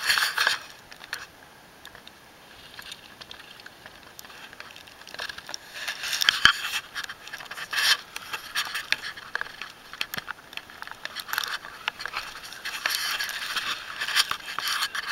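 Loose rock and gravel scraping and clattering under a person crawling over rubble in a low mine passage while pushing a rucksack ahead. It comes in irregular bursts with sharp clicks of stones knocking, busier from about five seconds in.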